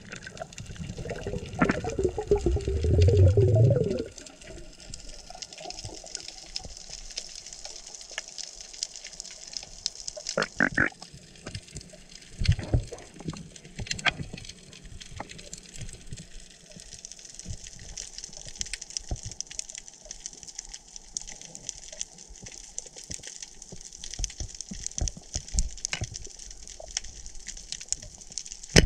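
Underwater sound through a submerged camera: a loud gush of bubbling water for the first four seconds, then a steady crackling hiss with scattered sharp clicks and knocks.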